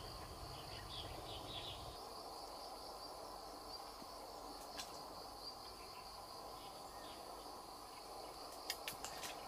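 Quiet outdoor ambience: insects chirring steadily at a high pitch, with a few faint clicks near the end.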